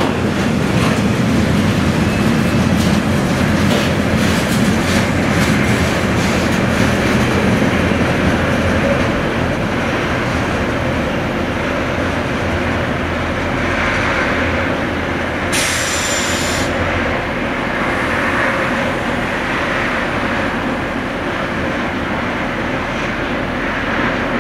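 A train passing close by: a continuous rolling rumble of wheels on rails, with a run of clicks in the first few seconds. About two-thirds of the way through there is a short hissing burst lasting about a second.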